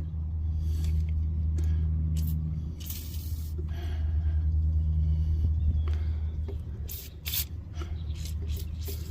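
Aerosol penetrating spray hissing in a short burst onto rusty hub bolts about three seconds in, with a few short clicks and knocks later. A steady low hum runs underneath.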